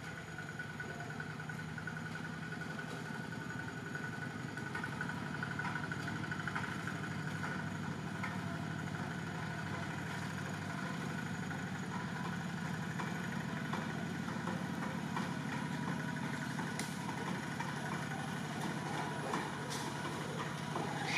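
A steady, low mechanical hum like an engine running at idle.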